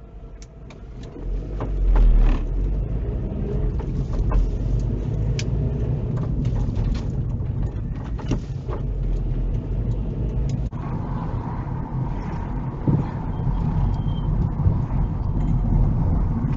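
Car engine and road noise heard from inside the cabin, growing louder about a second and a half in as the car gets under way, with scattered light knocks and rattles. The sound changes abruptly about eleven seconds in, where a different drive begins.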